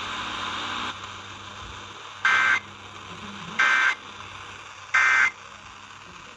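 Emergency Alert System end-of-message code on a NOAA Weather Radio broadcast: three short, identical two-tone data bursts about a second and a half apart, over faint radio hiss. The bursts mark the end of the alert message.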